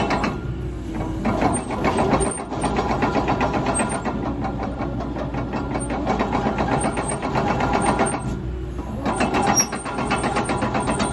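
Diesel engine of a CAT 312DL tracked excavator running, with a fast, even clatter. The clatter dulls briefly twice, near the start and about eight seconds in.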